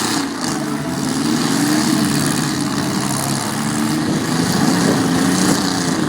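Demolition derby car engines running and revving, their pitch rising and falling unevenly.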